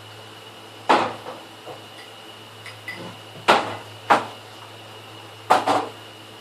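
Dishes and utensils knocked and set down during washing up: sharp clatters about one, three and a half, four and five and a half seconds in, with a few light clicks between them, over a steady low hum.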